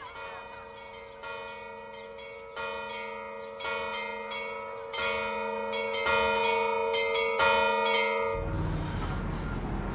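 Church bells ringing, about seven strikes roughly a second apart, each note ringing on and the peal growing louder. Near the end the bells stop and a car engine comes in with a low rumble.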